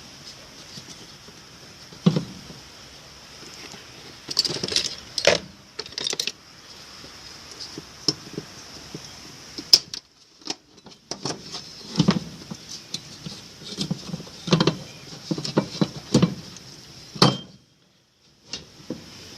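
Hands working a washing machine part into place: irregular clicks, knocks and rattles of plastic and metal parts being pushed and handled, with a brief stop near the end.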